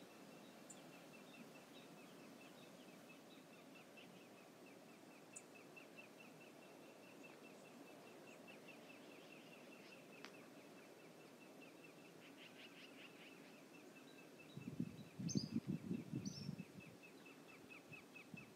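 Faint river ambience: a steady low rush of water, with a high ticking call repeating about three times a second throughout. A louder burst of low rumbling noise comes about three-quarters of the way through and lasts a couple of seconds.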